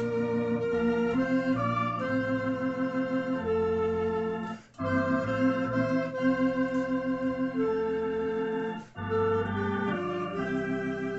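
Tokai T1 electronic organ and clarinet playing a hymn in 9/8 time: held organ chords under a clarinet melody. Two brief breaks between phrases come about four and a half and nine seconds in.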